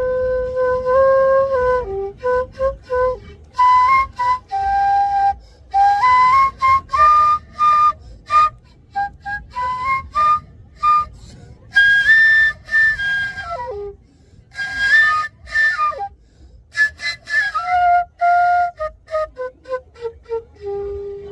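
A solo melody on a flute-like wind instrument: one line of notes, some held and some quick, in phrases with short pauses between them.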